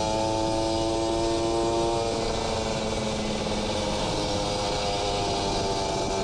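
Kawasaki Ninja RR two-stroke single-cylinder engine through an R9 Neo Mugello carbon racing exhaust, running at a steady cruise while riding, with road and wind noise. Its pitch shifts slightly about two seconds in.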